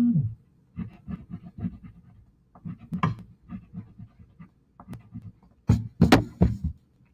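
Crayon scribbling quickly back and forth on paper, about three or four strokes a second. Just before six seconds in there are a few louder sharp knocks, as of a crayon being put down and another picked up.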